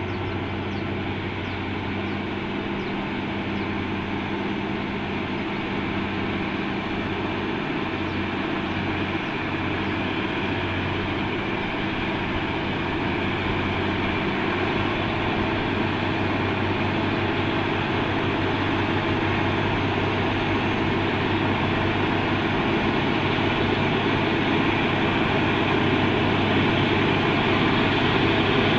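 Heavy diesel truck engine labouring steadily up a steep incline, growing gradually louder as it comes closer.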